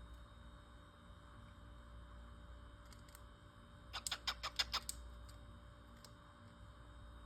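Cockatiel in its cage giving a quick run of about eight short, sharp sounds about four seconds in, with a few fainter ticks before and after, over a low steady hum.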